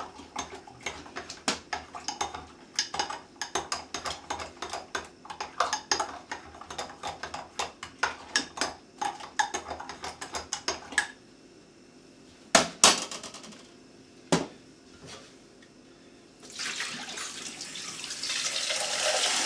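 A spoon clinking rapidly against a ceramic jug as honey is stirred into warm milk, for about the first eleven seconds, followed by a few sharp knocks. Near the end a kitchen tap is turned on and cold water runs steadily over a container in a stainless-steel sink.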